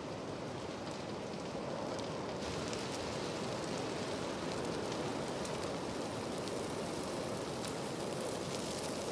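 Wildfire burning through forest trees and brush: a steady rushing roar with scattered crackles and pops. The crackling grows denser after about two seconds.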